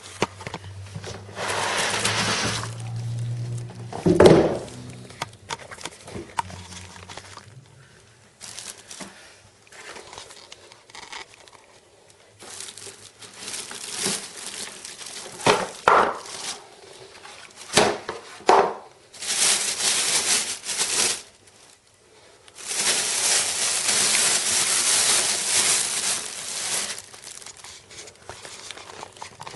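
Plastic wrapping and packing material crinkling and rustling as a boxed printer is unpacked by hand, with a heavy thump about four seconds in, a few sharp clicks later, and two longer stretches of dense rustling or tearing in the second half.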